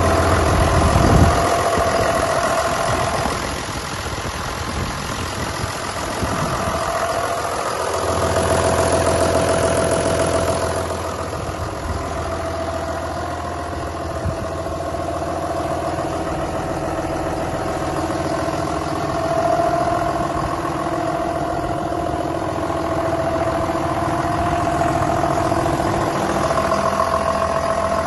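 2005 John Deere 6620 tractor's six-cylinder diesel engine idling steadily.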